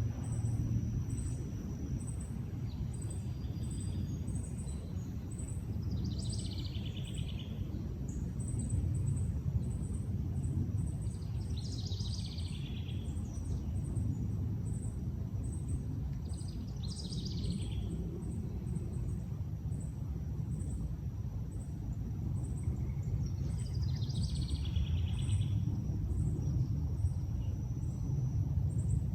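A songbird sings four separate phrases several seconds apart, each about a second and a half long and falling in pitch, over a steady low background rumble. A faint high ticking repeats about twice a second.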